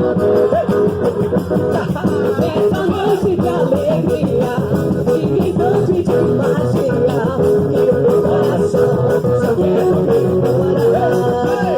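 Music with singing over guitar and other instruments, playing steadily.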